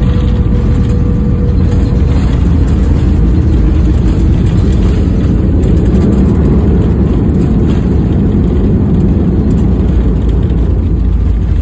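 Cabin noise of a Sukhoi Superjet 100 on its takeoff roll: its SaM146 jet engines run at high thrust, together with a loud, steady low rumble from the runway.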